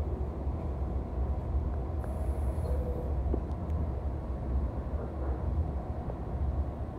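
Steady low rumble of an NJ Transit Multilevel coach running at speed, the wheels rolling on the rails heard from inside the passenger car, with a few faint clicks.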